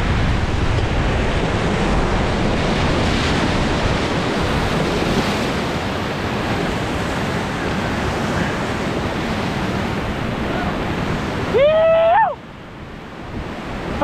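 Steady rushing roar of muddy whitewater rapids at record high water churning around a raft, with wind buffeting the microphone. Near the end a voice gives one brief rising shout, and then the rushing noise suddenly drops away.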